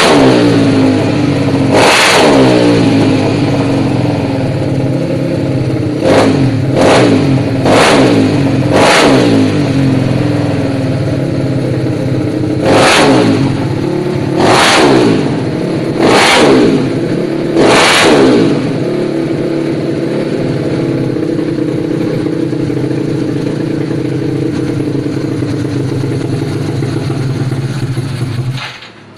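Yamaha Mio scooter's single-cylinder engine running on a stand, revved in about eight short, sharp throttle blips over a steady idle while it is being tuned, then cutting off abruptly just before the end.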